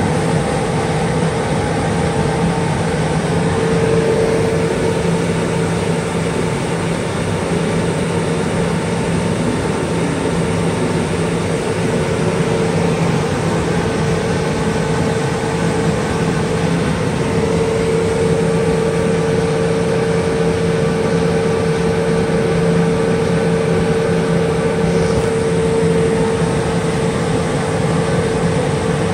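A 500x700 CO2 laser cutter running a cut: a steady machine hum from its fans and pumps. A whining tone over the hum grows louder at times and then eases back.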